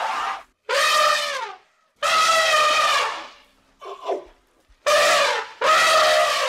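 Elephant trumpeting sound effect: about six separate blasts, some falling in pitch at the end, with short gaps between.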